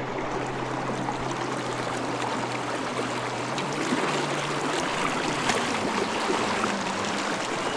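Mountain river water rushing steadily over rocks.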